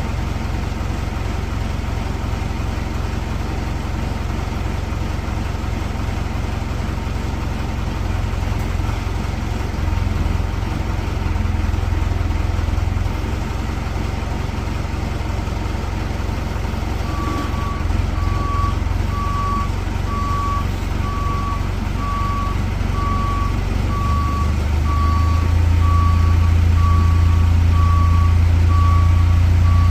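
Engine of a lifting machine running steadily, getting louder near the end as it revs up. About halfway through, a backup alarm starts beeping about once a second as the machine reverses.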